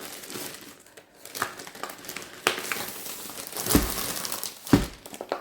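Plastic dustproof bag crinkling and rustling as a rolled diamond painting canvas is handled and pulled out of it, with a couple of dull knocks near the end.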